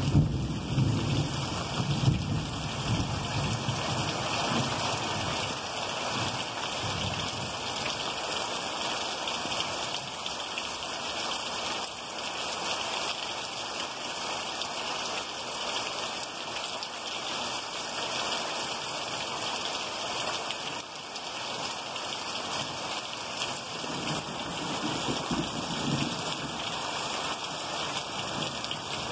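Heavy rain falling steadily, with thunder rumbling low in the first few seconds and again near the end.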